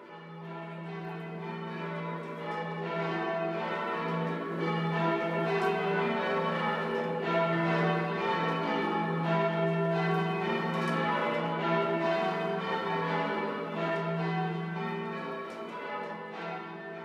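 Church tower bells being change-rung: a continuous peal of overlapping strikes in quick succession with a steady low hum beneath, fading in at the start and out near the end.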